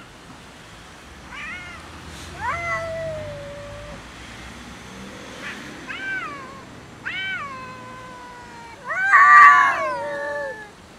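Stray cats meowing and yowling in a squabble over food: about five drawn-out meows that rise and then fall in pitch. The loudest and longest comes about nine seconds in.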